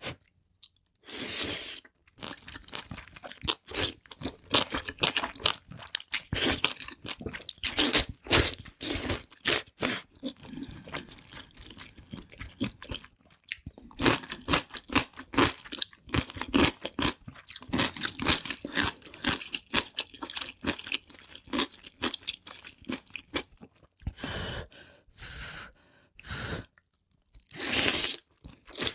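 Close-miked eating: crisp food bitten and chewed with many loud, crackly crunches, pausing briefly twice.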